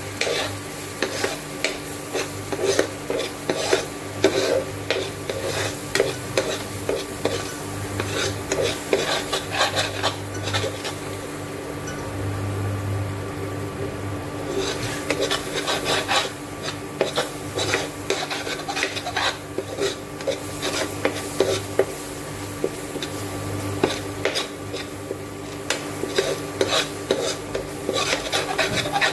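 A metal spoon scraping and stirring thick melted chocolate sauce around a coated frying pan in quick, repeated strokes, easing off for a few seconds a little before halfway. A steady faint low hum runs underneath.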